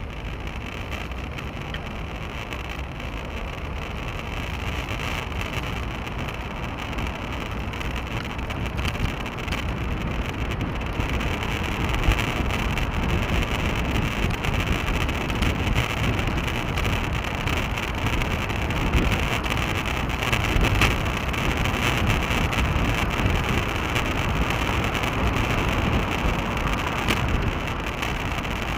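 Wind rushing over a bicycle-mounted action camera's microphone while riding, mixed with low road and tyre rumble. It grows steadily louder over the first dozen seconds and then stays level.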